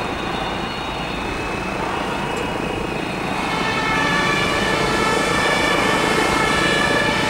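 Heavy vehicle engines and traffic running on a city street, with a city bus passing. A steady high whine grows louder about halfway through.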